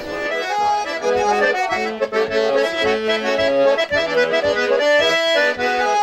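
Accordion playing a traditional tune, several notes held together and changing every fraction of a second.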